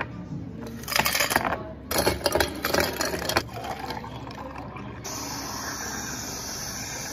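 Ice cubes clattering into two glass jars in two bursts, then milk drinks poured over the ice. About five seconds in, an aerosol whipped-cream can hisses steadily for nearly three seconds as cream is sprayed on top.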